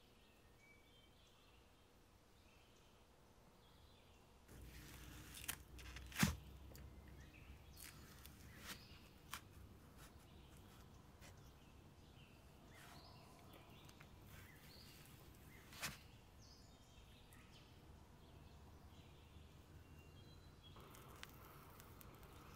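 Quiet room tone with a few sharp clicks and crackles, the loudest about six seconds in: a knife cracking through the crisp wafer sheet of a frozen ice cream cake and knocking on the cake board.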